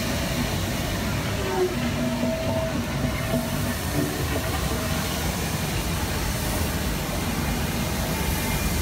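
Outdoor crowd ambience: a steady low rumble with a few brief, faint voices from people walking by.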